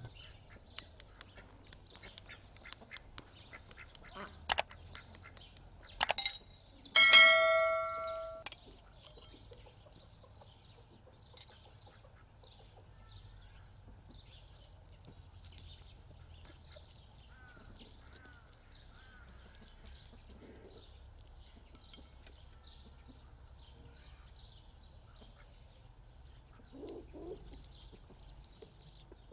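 Farmyard fowl calling: one loud call lasting about a second and a half, a softer call near the end, and faint small-bird chirps throughout. Light clicks and taps in the first few seconds come from a boiled egg being cracked and peeled with a small knife.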